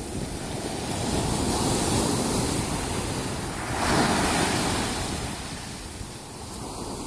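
Ocean surf on a beach: a wave builds and breaks, loudest about four seconds in, then washes back, with wind on the microphone.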